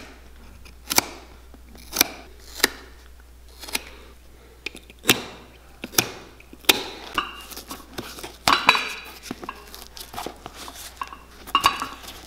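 Sharp clicks and snaps of metal nippers pulling and cutting old welt stitching out of a worn leather boot sole, about one a second. A knife blade scrapes and cuts along the leather sole edge, most noticeably in the second half.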